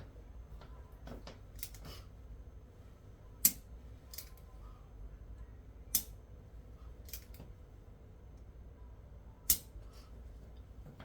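Sharp clicks during a chiropractic adjustment: three loud ones a few seconds apart, with fainter clicks and taps between them.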